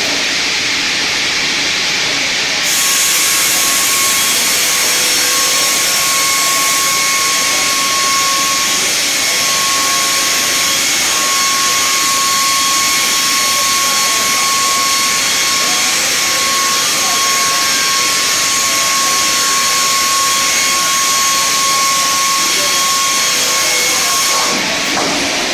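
Double-bladed circular sawmill sawing a spruce log: the spinning saw blades give a steady whine under a loud hiss. About three seconds in, a harsher, brighter hiss of the cut comes in and holds until it drops away shortly before the end as the pass finishes.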